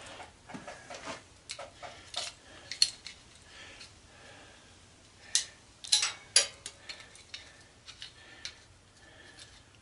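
Small metal parts and hand tools clinking and tapping on a work surface as an antenna rotator is handled during dismantling: scattered light clicks, with a few sharper clinks about three seconds in and a cluster a little past halfway.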